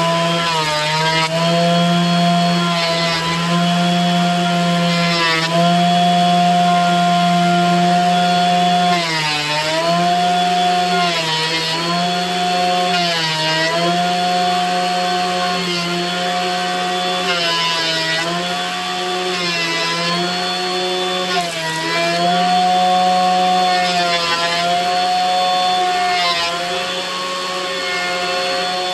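Benchtop thickness planer running steadily while curly maple boards are fed through it. Every couple of seconds the motor's pitch sags briefly with a burst of cutting hiss as the cutterhead takes load on a board.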